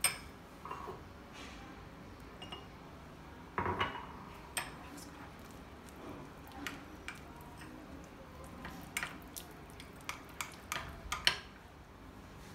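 Steel spoon clinking and scraping against a small glass bowl while stirring flour and water into a paste. Irregular light clinks come closer together in the second half.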